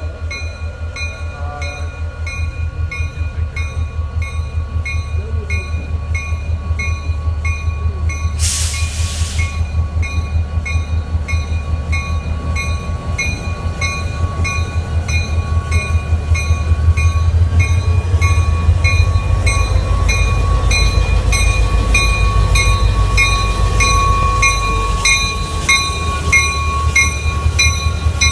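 Diesel locomotive Great Northern 325, in Burlington Northern green, pulling a passenger train slowly past at close range. Its engine's pulsing rumble grows louder as it draws near, while its bell rings steadily at about three strikes a second. A short burst of hiss comes about eight seconds in.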